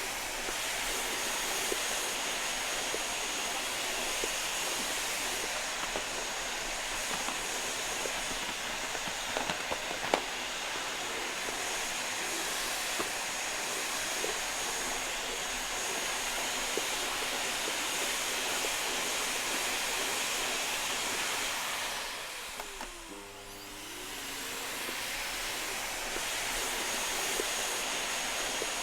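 Vacuum cleaner running with a steady rushing hiss and a faint high whine, a few small clicks about a third of the way in. Near the end the sound briefly drops in level while its pitch sags and climbs back, then it runs on steadily.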